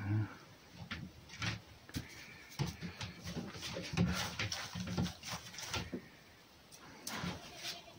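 A red fox and a cat play-fighting on a wooden kennel: irregular knocks and scrabbling of paws and bodies on the boards, busiest in the middle, mixed with short throaty animal sounds.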